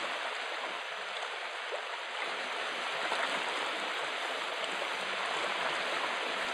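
Steady rushing, churning water.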